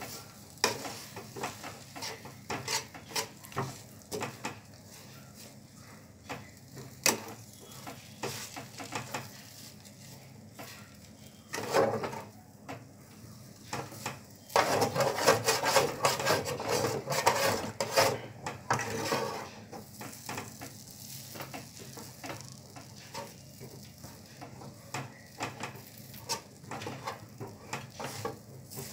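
Steel spatula scraping and knocking against a pan while stirring and breaking up thick semolina as it cooks, with a soft sizzle. The scraping gets louder and busier for about five seconds around the middle.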